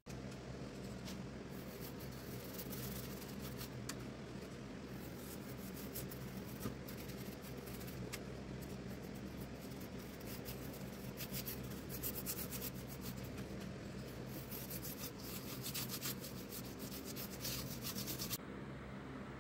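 Bristle paintbrush rubbing stain onto a wooden ladder rail: many quick, scratchy back-and-forth strokes that stop shortly before the end, over a steady low hum.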